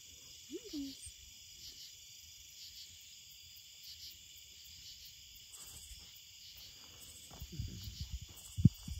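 Evening insects chirping steadily in pulsed trills. In the last second and a half come dull thumps and rustling, ending in one sharp knock, the loudest sound.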